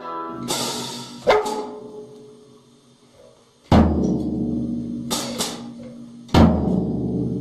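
Drum kit knocked by a dog: a cymbal crash, then a few heavy, irregular drum hits seconds apart with no beat, the drums ringing on after each and a brief cymbal clash between them.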